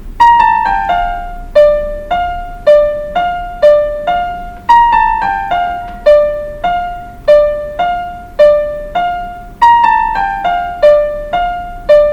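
Electronic keyboard in a piano voice playing a short melody, one note at a time: a quick falling run of notes followed by a few single notes. The phrase is played three times over.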